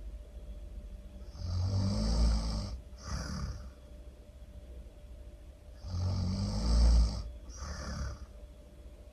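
Loud snoring in a slow rhythm: a low snore lasting about a second and a half, then a shorter, softer breath out. The cycle comes twice, about four and a half seconds apart.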